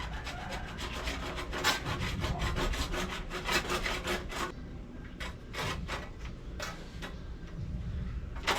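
Plastic water pipe being cut by hand with a saw: rapid back-and-forth strokes, about three a second, thinning out to slower, spaced strokes about halfway through.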